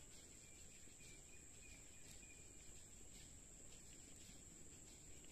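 Near silence: a faint, steady, high-pitched insect drone over quiet riverside ambience, with a few faint ticks.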